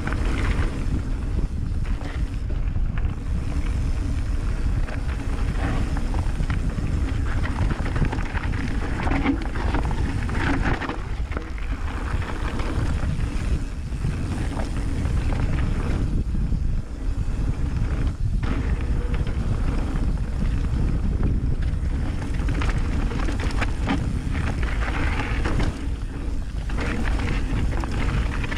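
Wind buffeting the microphone of a ride camera on a mountain bike moving along a dirt trail, with the tyres rolling and the bike rattling over the ground in a steady, unbroken rush.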